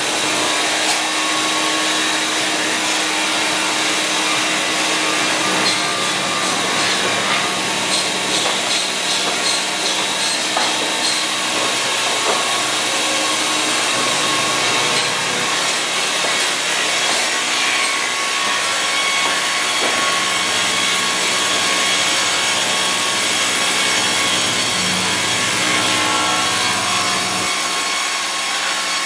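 Maschinenbau DNS-200 twin-arbor multi-blade rip saw running and sawing a log cant into boards: a steady, loud, even noise of blades cutting wood.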